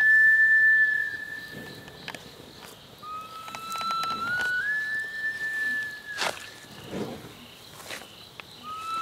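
A high, pure whistle-like wind instrument plays a slow melody. A held note fades out about a second in, and about three seconds in a second phrase climbs in steps to a long held note. About six seconds in there is a single sharp crack.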